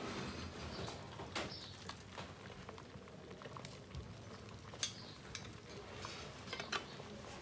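Food simmering in large clay cooking pots (cazuelas): a faint steady hiss, with a few light clicks and knocks scattered through it.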